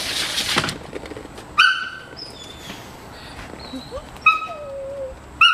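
A small dog yelping three times in short, high-pitched yelps, with a falling whine between the second and third. A brief rustling noise at the start.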